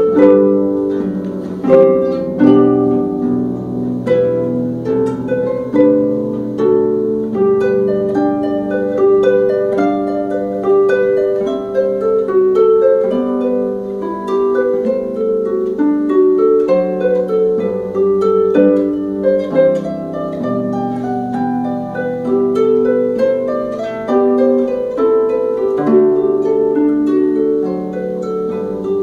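Concert pedal harp played solo: a steady flow of plucked notes and chords, with low notes left ringing under the melody.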